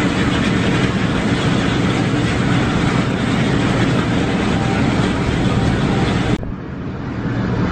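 Steady engine and road noise inside a coach cruising on a highway. A little past six seconds in, the sound cuts abruptly to a duller, quieter version of the same noise.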